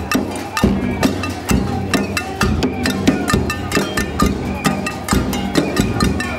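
Street percussion: a bass drum beaten with a stick about twice a second, under a dense run of sharp, clicking strokes from other percussion.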